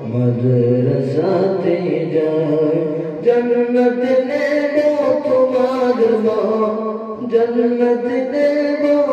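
Boys singing an unaccompanied Islamic devotional song (gazal) into microphones, in long held notes; the melody steps up to a higher pitch about three seconds in.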